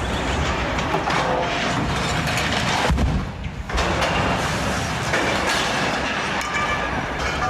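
A train running along the track, with a brief break a little over three seconds in.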